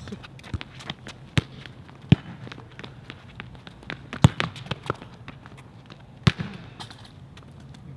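A soccer ball being kicked and bouncing on a hard court: several sharp thuds at irregular intervals of a second or two, with sneakers scuffing and running on the court surface between them.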